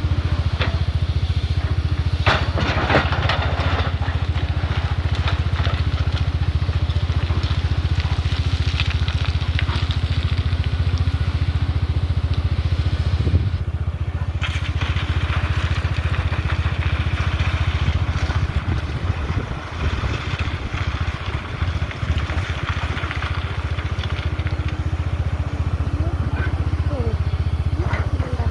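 Excavator's diesel engine running steadily while its bucket scrapes and crunches through river sand, with a few sharp knocks.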